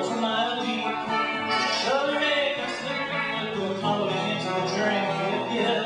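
Acoustic folk song played live, with plucked strings.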